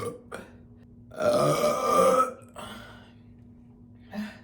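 A woman's long, loud burp lasting about a second, starting about a second in, with a shorter small sound near the end.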